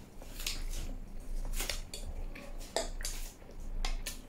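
Close-miked eating sounds: slurping and chewing a mouthful of stir-fried noodles with dried buffalo meat (sukuti chowmein), with forks clinking against a ceramic plate. It comes as an irregular string of short, sharp clicks and smacks.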